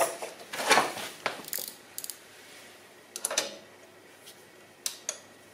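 Metal hand tools clinking and clicking as a socket wrench is fitted to a 12 mm motorcycle fastener and worked: a run of separate sharp clicks and short scrapes, busiest in the first two seconds and again about three seconds in.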